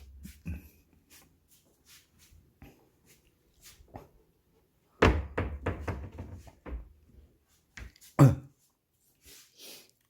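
Household containers being handled and moved during a search: scattered light knocks and clicks, a run of clattering about halfway through, and a heavy thunk a little past eight seconds.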